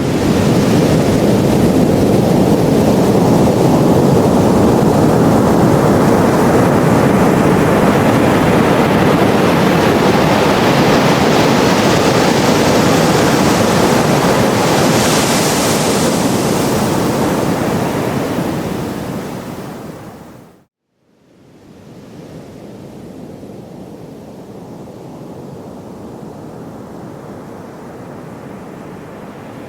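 Ocean surf washing: a long, loud rush of wave noise that fades about twenty seconds in, breaks off for a moment of silence, then carries on as quieter, steady surf.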